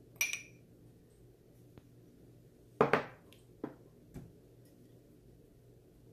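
Kitchen utensils clinking and knocking, a few short separate strikes: a ringing clink near the start, the loudest double knock about three seconds in, then two lighter clicks.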